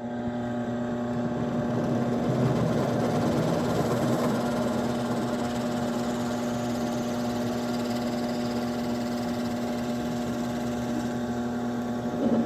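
Electric drill motor running at a steady speed while drilling holes through small blocks of scrap wood, a constant even hum.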